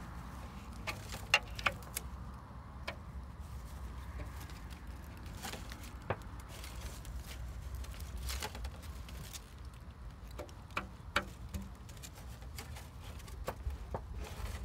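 Irregular dry clicks and crackles of thorny bramble stems and twigs being pushed and bent by hand, about a dozen spread unevenly, over a steady low rumble.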